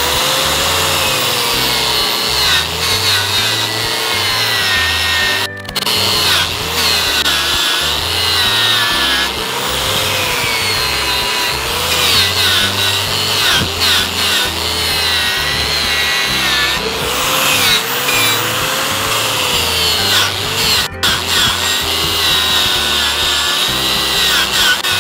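Angle grinder with a knotted wire wheel brush running against rusty steel square tubing, stripping the rust down to bright, smooth metal. The motor's whine wavers in pitch as the wheel is pressed on and eased off, and the sound breaks off for a moment twice.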